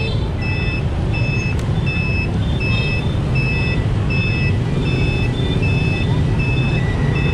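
Scooter turn-signal beeper sounding a short electronic beep about every 0.7 seconds while the indicator is on for a left turn, over the steady low rumble of the moving scooter and wind on the microphone.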